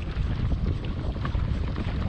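Wind buffeting the microphone in a steady low rumble, with faint small ticks over it.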